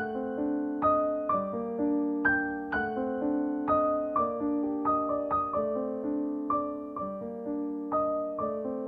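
Gentle background piano music: notes struck at an even pace of about two a second, each ringing and fading before the next.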